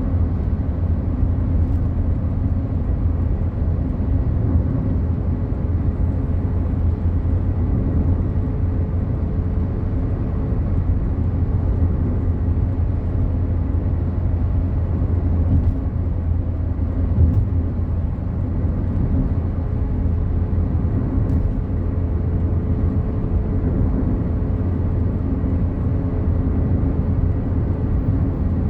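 Inside the cabin of a Fiat Palio Fire cruising on a highway: a steady low drone of engine and tyre-on-road noise, with a faint steady hum above it and a few light clicks.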